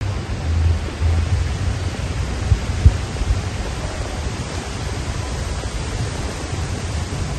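Steady hiss with low rumbling through the first second or two and a few short knocks about halfway.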